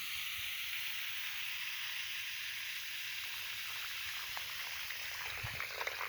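Steady hiss of running water flowing along the pavement toward a newly installed storm drain, run to show where the water will go, with small splashes and trickles near the end.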